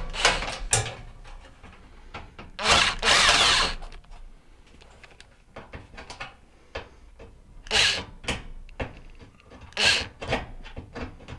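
Makita cordless drill with a screwdriver bit backing screws out of a range's sheet-metal rear panel, in four short bursts of the motor, the longest about a second. Light clicks come between the bursts.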